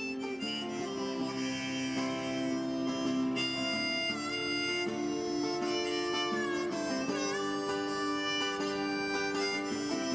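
Harmonica played over a strummed acoustic guitar, holding chords and bending a few notes about halfway through.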